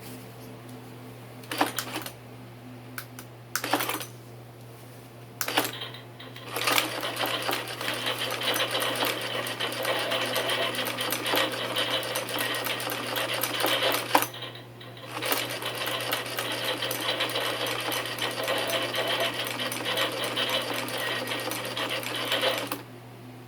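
Animated skeleton typewriter Halloween decoration clattering: a few short bursts of rapid key clacking, then a long run of fast, continuous typing clatter with one brief pause, stopping near the end. A low steady hum runs underneath.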